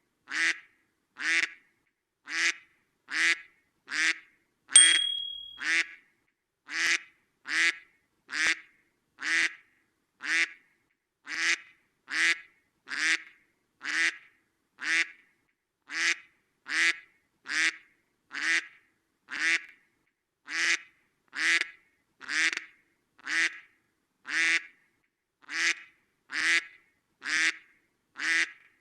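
A duck quacking over and over at an even pace, a little more than one quack a second, each quack the same short call. About five seconds in, a louder high-pitched tone sounds for about a second over the quacking.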